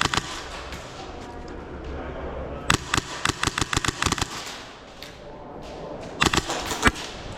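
Airsoft guns firing in rapid strings of sharp shots: about ten in quick succession around three seconds in, then another short string near the end.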